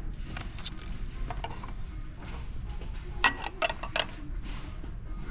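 Tableware clinking: four or five sharp clinks with a short ring in quick succession about three seconds in, over the steady hum of a large store and a few softer handling taps.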